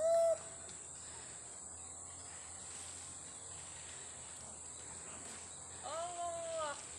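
Steady high-pitched insect drone. Over it comes a short, clear call right at the start, then a longer call near the end whose pitch rises and falls.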